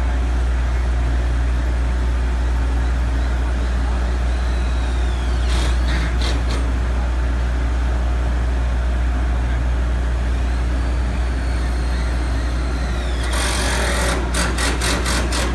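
Heavy machinery engine running with a steady low hum. There is a short burst of hissing about five and a half seconds in, and a longer one near the end that breaks into rapid hissing pulses.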